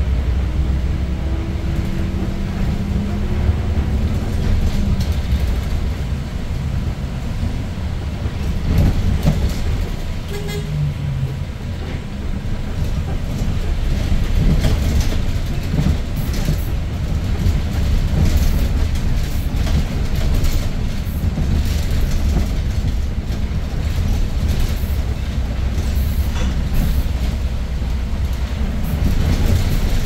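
Cabin sound of a 2019 Daewoo NEW BS090 city bus under way, its CNG-fuelled GL08P engine running with a deep drone that rises in pitch over the first few seconds as the bus accelerates. Tyre noise from a wet road and scattered rattles of the cabin go with it, and there is a brief beep about ten seconds in.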